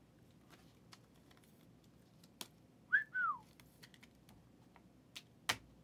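A short two-note whistle about three seconds in, a quick rise and then a longer falling glide, amid a few light clicks and taps of trading cards being handled.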